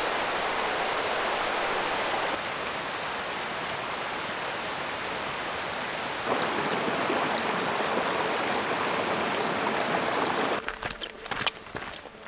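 Steady rushing of a mountain stream, a touch louder from about six seconds in. Near the end it gives way to a run of crunching footsteps on stony ground.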